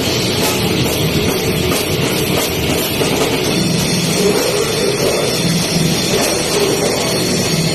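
Death metal band playing live: distorted guitars and drums in a loud, dense wall of sound.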